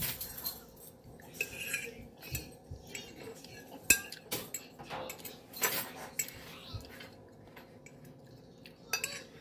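A metal fork scraping and clinking against a ceramic plate, picking up the last bits of salad: a scatter of irregular clicks and scrapes, the sharpest about four seconds in.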